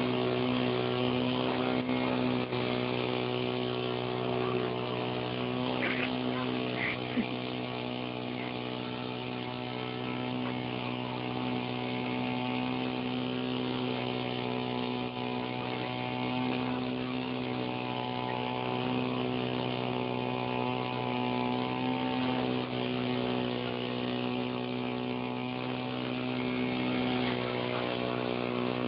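Small electric motor and propeller of a ParkZone Ultra Micro T-28 RC plane buzzing steadily in flight. Its pitch wavers a little about two-thirds of the way through.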